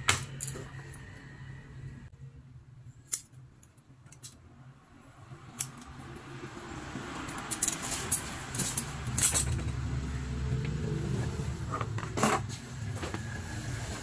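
Light clicks, taps and rustles of foam insole sheets being handled and trimmed on a tiled floor, scattered through and bunched about two-thirds of the way in, over a low steady hum that grows louder in the second half.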